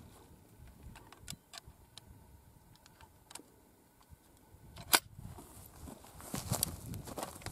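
Small metallic clicks and rattles of a reverse-cycle 12-gauge shotgun being handled and its action worked, with one sharp, loud clack about five seconds in. Scuffing noise builds near the end.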